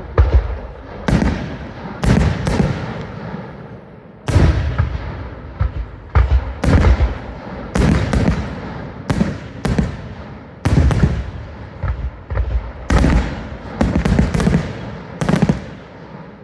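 Fireworks display: a string of sharp bangs, roughly one a second, each trailing off in a low rumble.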